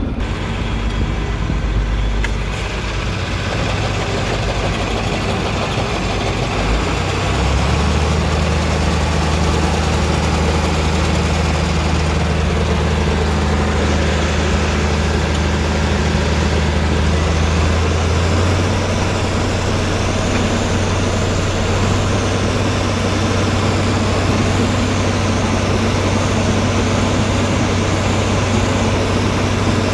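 Tractor engine running steadily while pulling a sickle-bar mower-conditioner cutting hay, heard from inside the cab. The engine's hum changes pitch about eight seconds in and again around eighteen seconds.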